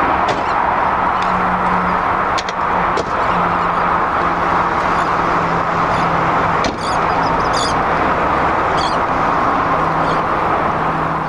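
A car running, with a steady drone of engine and road noise.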